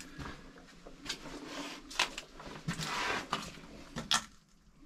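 Footsteps and scuffing on a gritty, littered floor in a narrow brick tunnel, with two sharp knocks about two and four seconds in.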